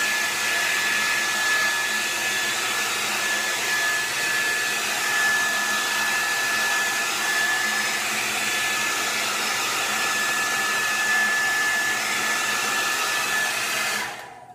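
Collapsible Conair 1875 travel hair dryer running on high: a steady rush of air with a thin, steady whine over it, switched off near the end.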